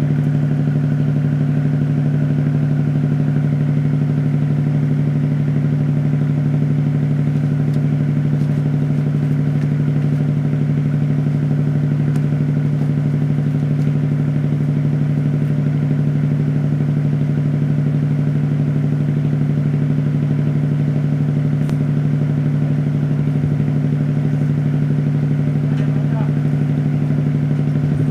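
An engine running steadily, an even hum that does not change in pitch or level.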